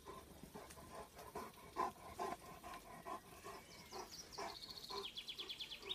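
Faint, short whines from a German shepherd, a few a second. In the last two seconds a songbird gives a rapid trill of quick repeated high notes, stepping down in pitch.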